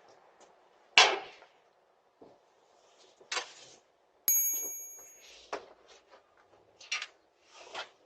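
A sharp metallic ding about four seconds in that rings on for about a second, among scattered knocks and clicks, the loudest a knock about a second in.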